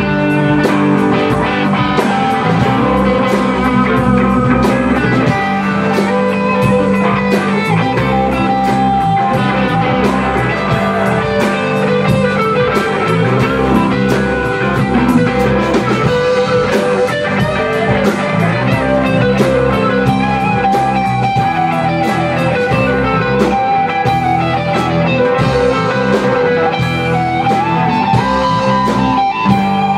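Rock band playing live: two electric guitars, bass guitar and drum kit, with regular drum hits under sustained guitar notes.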